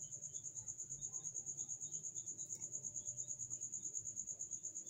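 A cricket trilling steadily: a high, thin chirp in rapid, even pulses.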